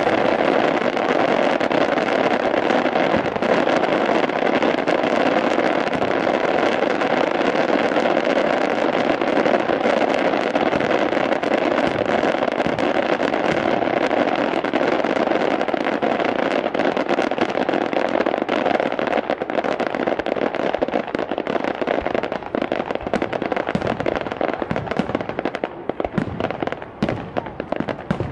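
A rapid fireworks barrage: shells and bursts go off so close together that the bangs and crackle merge into one continuous rumble. In the last few seconds it thins into separate sharp bangs.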